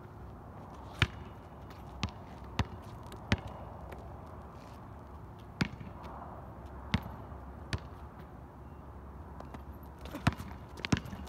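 A basketball bouncing on an outdoor asphalt court: single sharp bounces at irregular intervals, about nine in all, over low steady background noise.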